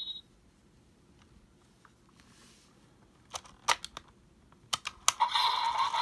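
Several sharp plastic clicks from the Bandai DX Command Twin Buckle toy being handled, after about three seconds of near silence. Near the end the toy's electronic sound effects start up loudly.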